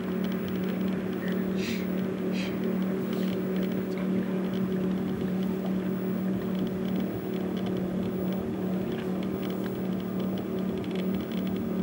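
Steady boat-engine drone holding one low pitch and an even level, with a few faint ticks.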